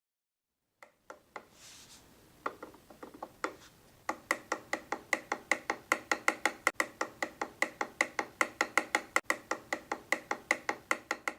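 Boosted Board v2 electric skateboard motor clicking: a few scattered clicks, then from about four seconds in a steady run of sharp clicks, about five or six a second. The clicking comes from play in the bearing of the motor shaft.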